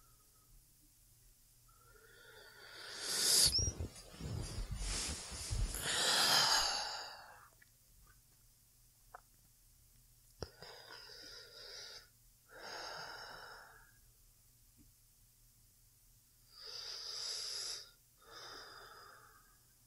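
A woman's slow, sleepy breathing close to the microphone. A long, loud deep breath comes about two seconds in, then softer slow breaths in and out in two pairs near the end.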